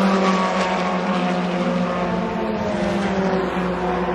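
Race car engines running at speed on the circuit: a steady drone whose pitch falls slowly.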